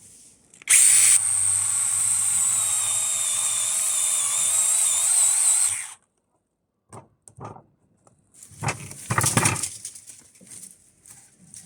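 Small brushless battery chainsaw with a 6-inch bar making the back cut: it starts sharply, runs with a steady high whine for about five seconds, then stops. A few short knocks follow, then a louder burst of noise about nine seconds in.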